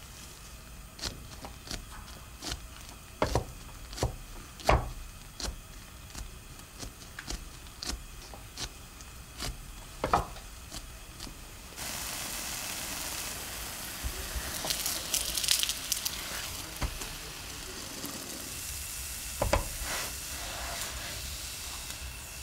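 Flatbread dough cooking in a nonstick frying pan. It begins with scattered sharp clicks and small pops, then about halfway through a cut brings a steady sizzle of the bread frying, with a couple of clicks near the end.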